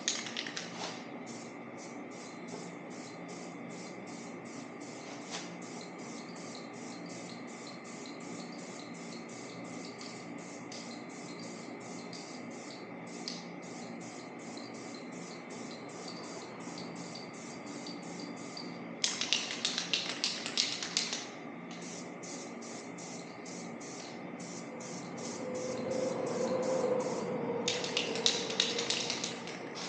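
Aerosol spray paint can spraying in two bursts of about two seconds each, over a fast, even ticking that runs under the whole stretch.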